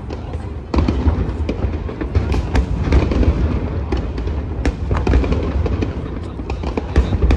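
Aerial fireworks shells bursting in a rapid barrage: deep booms under many sharp cracks. It gets louder about a second in.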